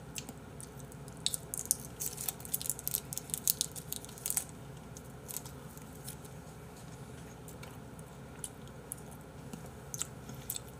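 Plastic film wrapper of a processed cheese slice crinkling and tearing as it is peeled off, a dense run of sharp crackles over the first few seconds, then a few scattered ones.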